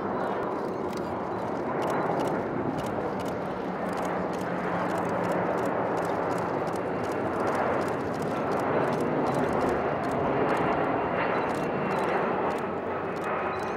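Jet engines of an Airbus A300 freighter on final approach, giving a steady rushing noise as the aircraft passes low. A faint high whine rises out of it near the end.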